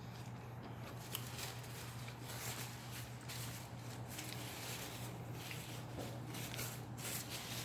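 Chewing and crunching of fried chicken close to the microphone: irregular soft crackles and clicks over a steady low hum.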